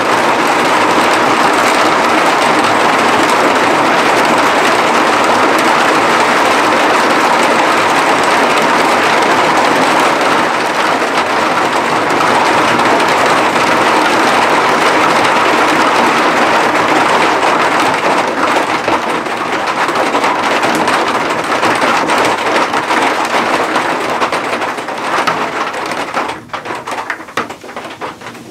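Heavy cloudburst rain pouring down in a dense, steady hiss. Over the last few seconds it turns patchier, breaking into separate drips and spatters.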